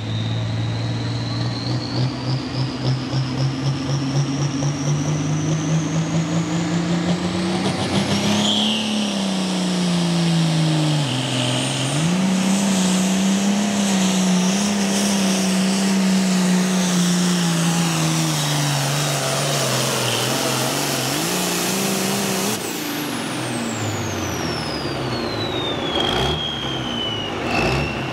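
Super Pro Farm class pulling tractor's diesel engine under full load. Its revs climb steadily over the first eight seconds, with a high whine rising alongside. It then stays wound up high, sagging and recovering as it drags the sled. A little past twenty seconds the throttle comes off: the engine note drops and the high whine falls away.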